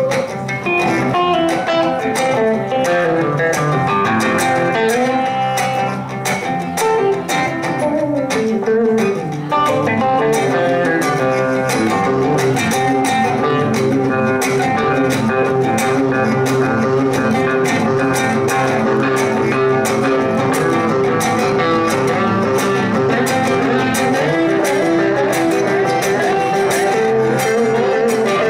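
Live guitar band playing an instrumental blues-rock passage: electric guitars play melodic lead lines and bends over strummed rhythm guitars, with no singing.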